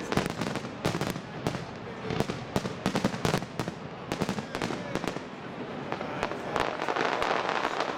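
Aerial firework shells bursting in quick succession, a dense string of bangs and crackles that thins out after about five seconds into finer crackling.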